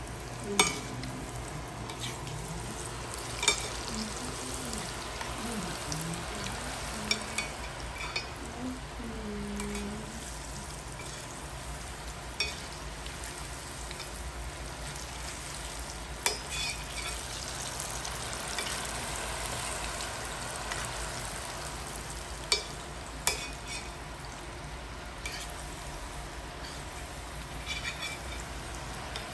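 Coated pork tenderloin pieces deep-frying in hot oil in a stainless steel pan, a steady sizzle through their second fry for crispness, with a few sharp metal clinks of the wire skimmer against the pan.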